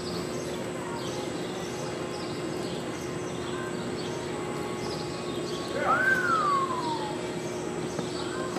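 Steady hum of a large indoor arena with faint, repeated bird chirps. About six seconds in comes a single loud whistle that rises quickly and then falls slowly.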